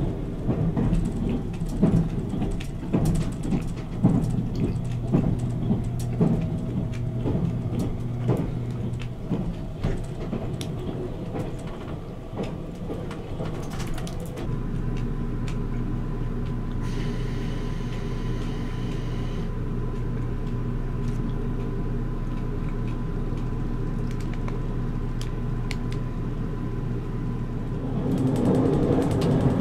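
Paper wrapper crinkling and rustling in the hand as a taiyaki is held and eaten, over the steady running rumble of a Nichirin limited express train. About halfway through the crinkling stops, leaving only the train's even rumble with a faint steady tone, which grows a little louder near the end.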